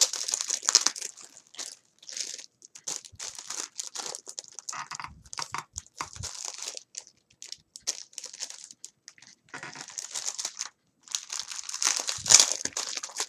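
Packaging crinkling as it is handled and unwrapped by hand: a rapid run of dry crackles, with a brief pause near eleven seconds and the loudest crackling just after.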